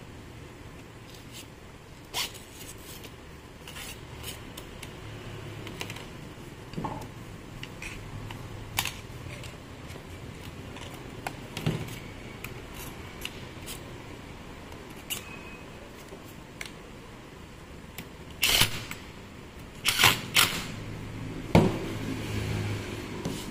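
Scattered clicks and knocks as an angle grinder's plastic housing and small metal parts are handled and set down on a workbench, with a louder run of clatter about three-quarters of the way through.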